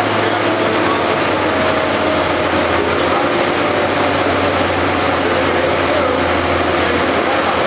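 Rebuilt 2005 Suzuki Hayabusa inline-four engine running steadily, with no revving.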